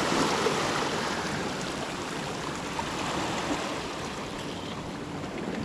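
Small sea waves washing and swirling over shoreline rocks: a steady rushing wash, a little louder in the first second and then easing slightly.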